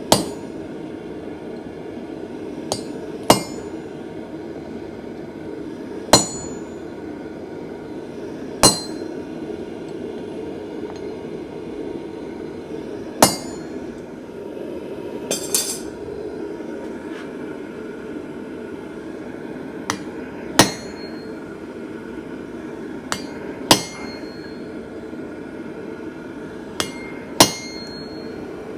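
Slow, separate hand-hammer blows on metal at a blacksmith's anvil, about one every two to five seconds, some with a lighter tap just before. Several ring on briefly after the hit. A steady low rushing noise runs underneath.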